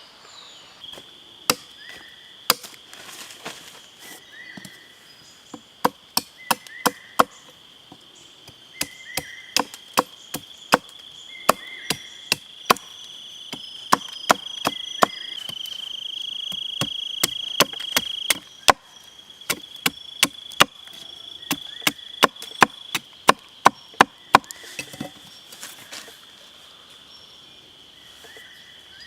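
Repeated chopping strikes on wood, dozens of sharp knocks coming in quick runs. Under them runs a steady high insect drone, which swells for a few seconds in the middle.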